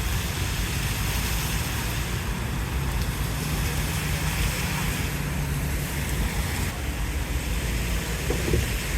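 Steady hiss of rain falling, over a continuous low rumble.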